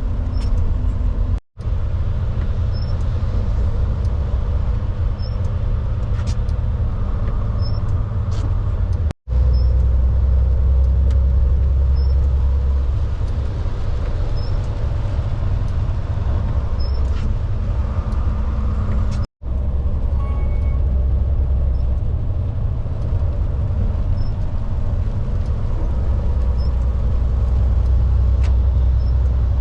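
Semi truck's diesel engine running steadily on the road, a deep rumble heard from inside the cab, with a faint tick every couple of seconds. The sound drops out for an instant three times.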